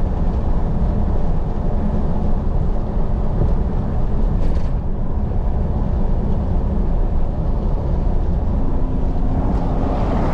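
Steady drone of a vehicle driving along a road, heard from inside: low engine and tyre rumble with no change in pace.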